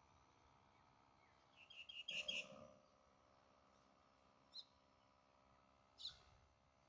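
Birds chirping: a quick run of high chirps about two seconds in, then two single short chirps later, over a faint steady hum.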